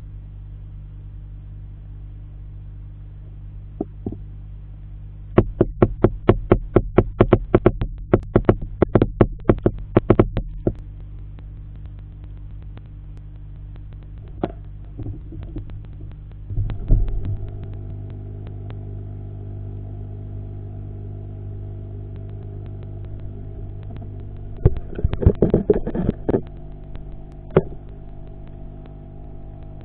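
Eheim surface skimmer's pump humming steadily in an aquarium. A run of sharp clicks, about five a second, comes about five seconds in, and about seventeen seconds in, higher steady tones join the hum. A short cluster of knocks follows near the end.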